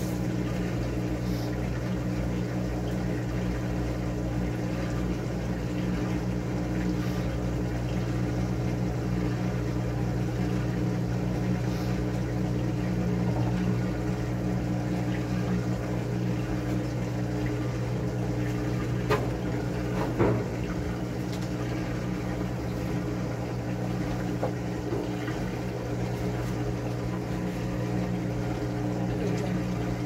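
Top-load agitator washing machine filling with water: the rush of incoming water over a steady hum from the machine, with two small knocks about two-thirds of the way through.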